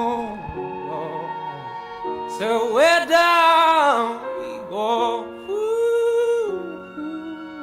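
Background music: a voice sings long notes that slide and waver over held chords, in two main phrases.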